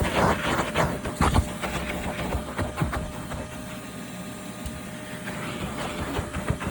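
Hart 6-gallon, 5-horsepower shop vac running with a steady whine. Irregular clicks and rattles sound over it, heaviest in the first few seconds.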